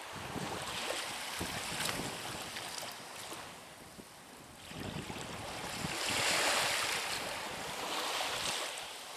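Small sea waves washing onto the shore, swelling and easing twice and loudest about six seconds in, with wind buffeting the microphone.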